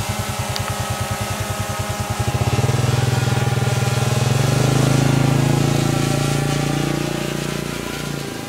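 A motor running with a rapid even pulsing. About two seconds in it changes to a smoother, louder run, which fades near the end.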